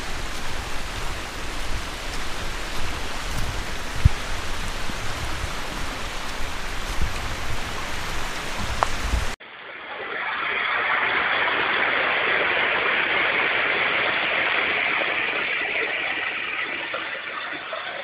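Mountain creek water running over stones, a steady rushing noise. The first half also carries low rumbling and a single thump about four seconds in. About nine seconds in, the sound cuts abruptly to a duller, steadier rush of the stream.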